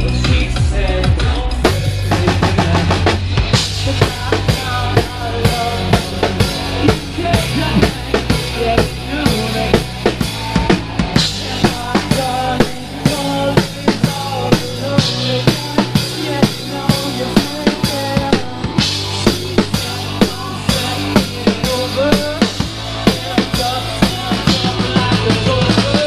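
A live band playing a song, led by a drum kit keeping a steady beat of kick and snare under pitched instruments and a bass line.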